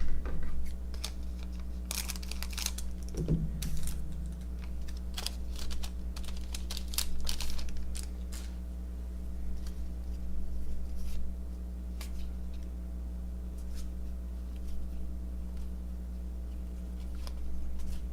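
Baseball cards being handled and flipped through: scattered dry clicks, taps and light rustling of card stock and pack wrapper, busier in the first half and sparser later, over a steady low hum.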